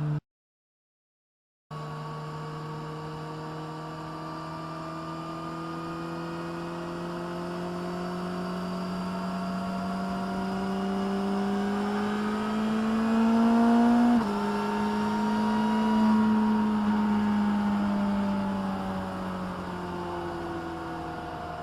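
2022 Suzuki Hayabusa's inline-four engine running at raised revs through its exhaust. The pitch climbs slowly, drops abruptly about two-thirds of the way through, rises to a brief peak and settles back to a steady note. There is a gap of dead silence of about a second and a half just after the start.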